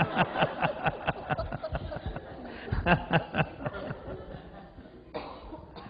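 A man laughing into a handheld microphone: quick repeated chuckles that trail off toward the end.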